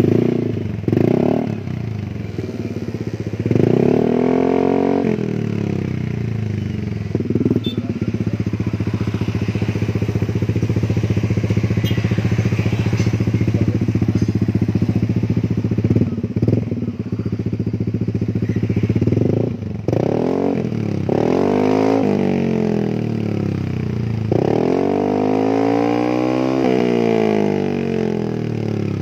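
Yamaha Aerox 155 scooter's single-cylinder four-stroke engine idling through a newly fitted SKR full-stainless racing exhaust with an oval silencer, the throttle blipped again and again. Short revs come about a second in and around four seconds, a quick run of revs about two-thirds of the way through, and a longer rev near the end.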